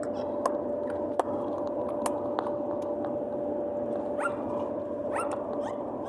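Steady hum and road noise inside a moving car's cabin, with a few sharp clicks and two short rising squeaks from a green parrot about four and five seconds in.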